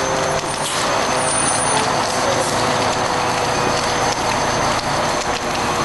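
Fire truck engine running steadily under a dense rushing hiss, with scattered crackles.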